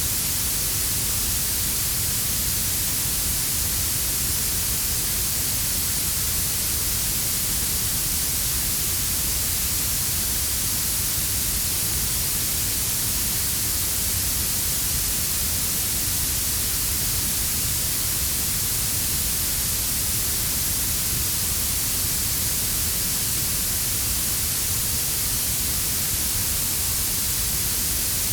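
Synthesized warm blue noise: a steady, even hiss strongest in the high end, with a brown-noise rumble layered underneath at −6 dB.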